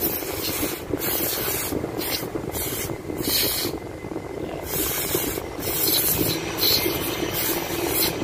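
Aerosol cleaner sprayed through a thin straw nozzle onto a small engine sensor, hissing in repeated short bursts with a longer pause about four seconds in.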